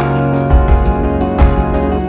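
Background music: a gentle instrumental track with plucked guitar over a steady beat and bass.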